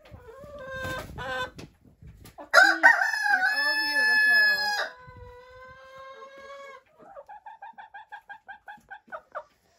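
Rooster crowing once about two and a half seconds in: a few short notes, then a long held note. Near the end, chickens cluck in a quick run of short notes, about five a second.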